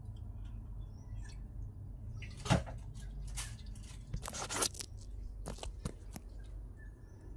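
Scattered, irregular sharp clicks and taps over a steady low hum, the loudest about two and a half seconds in and a quick cluster a little after four seconds.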